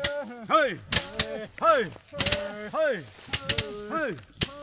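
Long bamboo sticks beating a heap of dried kholar bean plants on a tarpaulin to thresh out the beans. The sharp cracks come irregularly, about two a second, and overlap with pitched sounds that rise and fall.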